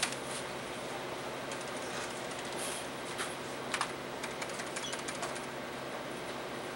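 Scattered clicks of typing on a computer keyboard, some in quick runs, over a steady electrical hum of office equipment.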